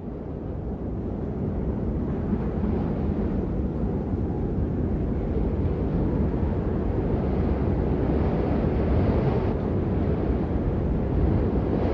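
Blizzard wind blowing hard: a steady, deep rushing noise with no clear pitch, swelling up over the first couple of seconds.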